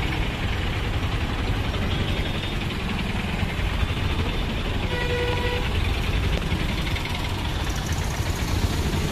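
Auto-rickshaw engines running as a line of them drives past along the street, a steady traffic noise. About five seconds in, a vehicle horn sounds once, briefly.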